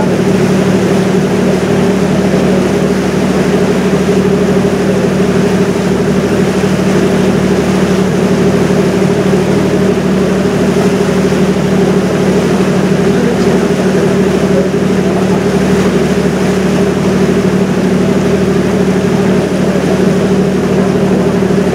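Engine of a river cruise boat running steadily, heard on board: a constant low hum with an even rushing noise over it.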